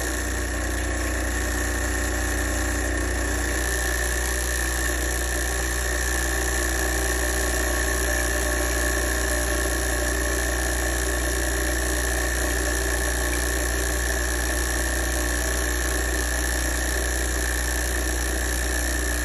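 Lelit Elizabeth espresso machine's pump running steadily with a low hum, pushing cold water through to cool the boiler after it was overheated from steaming.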